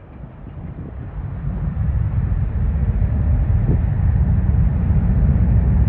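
Jet airliner's engines, a low rumble that grows louder over the first two seconds and then holds steady.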